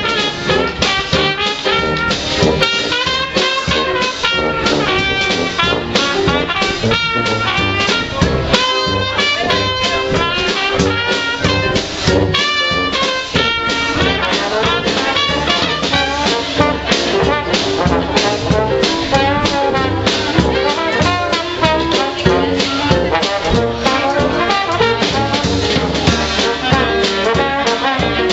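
Live Dixieland jazz band playing: trumpet, trombone and clarinet over tuba and drum kit, with a steady beat.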